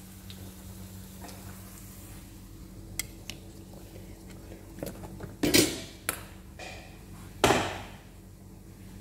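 Kitchen dishes and utensils clinking and clattering on a counter: a few small clicks, then louder knocks about halfway through and again near the end, over a steady low hum.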